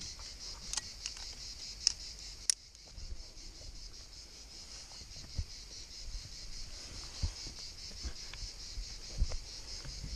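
A steady, high insect chorus with a fine pulsing texture. Over it come a few sharp clicks in the first few seconds and scattered low knocks, from the climber's hands, shoes and gear on the limestone close to the camera.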